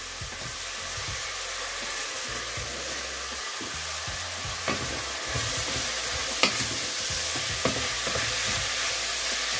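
Chopped fennel, leek, onion and carrot frying in hot olive oil in a stainless steel pot, just beginning to sweat at the start of a sofrito. A steady sizzling hiss grows a little louder about halfway through. A few sharp clicks come in the second half, and a wooden spoon stirs the vegetables near the end.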